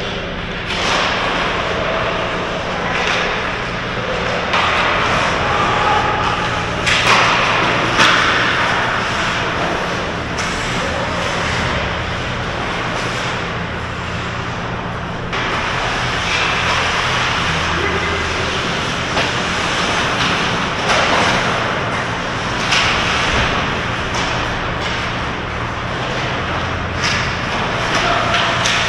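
Ice hockey play on a rink: skate blades scraping and hissing on the ice, with sharp knocks of sticks and puck against the boards, the loudest a little past a third of the way in. A steady low hum runs underneath.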